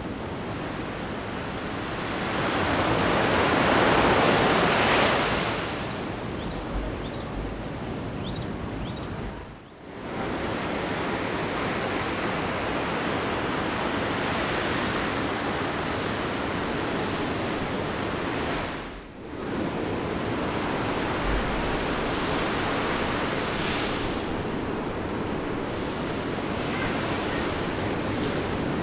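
Ocean surf breaking and washing up the beach, a continuous hiss of waves. One wave surges louder a few seconds in. The sound drops away briefly twice.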